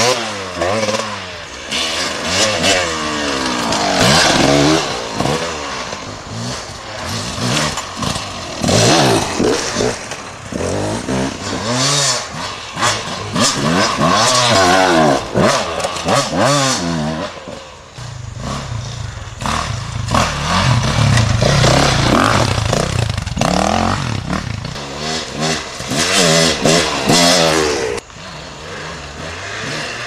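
Off-road dirt bikes passing one after another on a dirt trail, their engines revving up and down as each rider goes by, one after another through the whole stretch.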